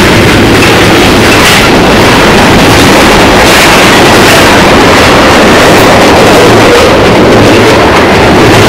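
Freight train of tank cars rolling past at close range over a railway bridge: a very loud, steady rumble of steel wheels on the rails, with a few faint clicks.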